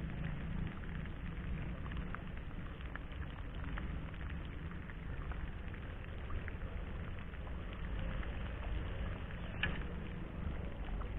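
Light rain pattering, with scattered drops ticking, over a steady low rumble.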